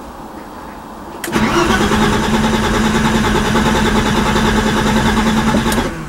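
BMW E30's starter motor cranking the engine for about four and a half seconds, starting about a second in and cutting off suddenly, without the engine catching. The car will not start, which the owner puts down to a dead fuel pump, since no pump is heard when the key is turned on.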